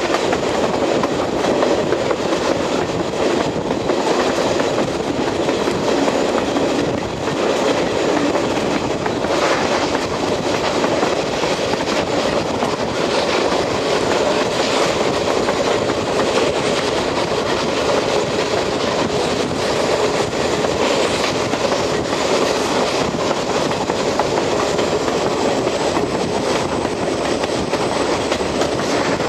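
Passenger train rolling along the track, heard from the outside of a coach: a steady rumble of wheels on rail with scattered clicks over the rail joints.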